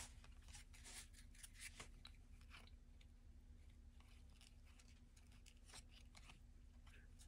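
Faint clicks and rustles of trading cards being handled and flipped through one after another, over a low steady hum.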